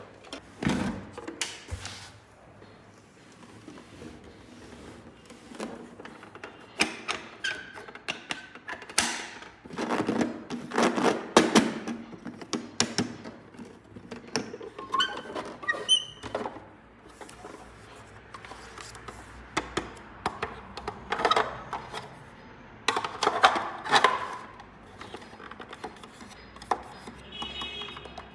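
Plastic toy doll-house pieces handled and set down: irregular knocks, clicks and rustles.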